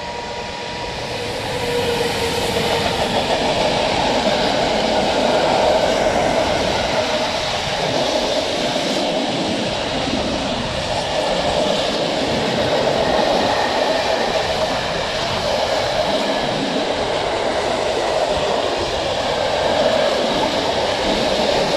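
Freight train of open goods wagons rolling past at close range behind an electric locomotive: a steady rumble of steel wheels on the rails, growing louder over the first two seconds as the train reaches the microphone.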